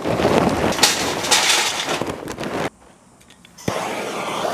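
Charcoal poured from a bag into a metal chimney starter: a clattering rattle for about two and a half seconds that stops suddenly. After a short pause there is a click, then a steady hiss from a hand torch being used to light the chimney.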